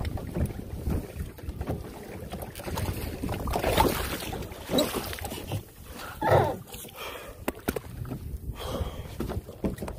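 Water sloshing and splashing around a kayak, with wind buffeting the microphone; the noise swells irregularly, with a few louder surges around the middle.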